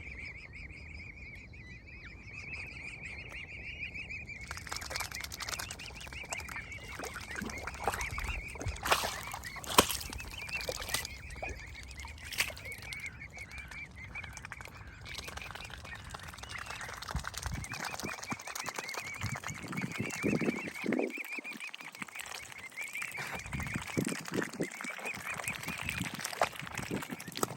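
Swan cygnets peeping continuously in high, wavering calls. Lower honking calls from an adult swan join in during the second half, and a few sharp clicks come around ten seconds in.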